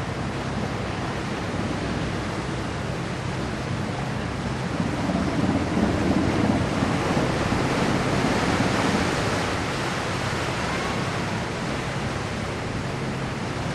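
Car ferry's diesel engines humming steadily as it comes alongside the berth, with its propellers churning the water; the churning swells louder about five seconds in and eases off after about ten seconds.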